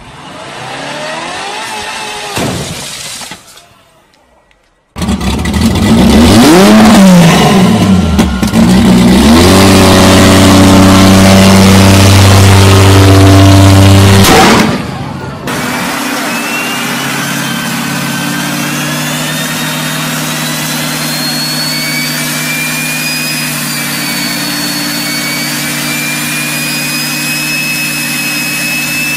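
Engines revved hard in a run of short clips: a brief rev, then a very loud engine swept up and down in pitch and held at high revs for about ten seconds, cutting off suddenly. From about sixteen seconds in, a steadier engine drone with a thin whistle slowly rising in pitch.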